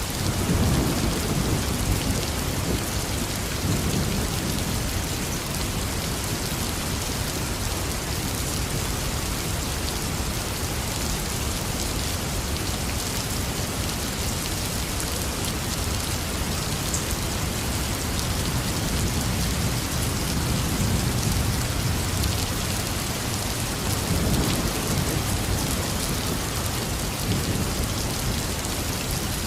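Heavy, steady rain falling, with low rolls of thunder rumbling in the first few seconds and again about two-thirds of the way through.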